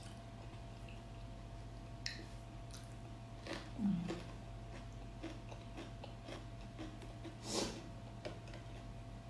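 Someone chewing and eating, with soft mouth clicks and three louder smacks about two, four and seven and a half seconds in, over a steady low hum.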